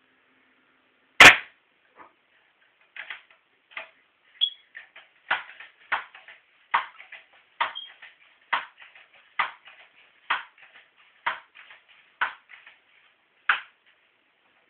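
A single sharp crack from a Crosman Pumpmaster 760 air rifle, then a rhythmic run of about ten clacks, roughly one a second, as the rifle's pump lever is worked to recharge it for the next shot.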